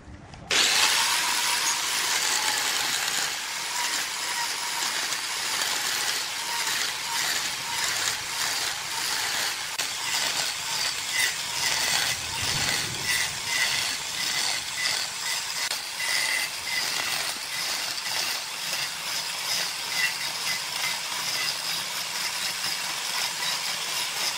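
Electric angle grinder starting up about half a second in and running steadily. Its disc grinds into the wooden rim, giving a high motor whine over a scratchy cutting noise that rises and falls as it bites.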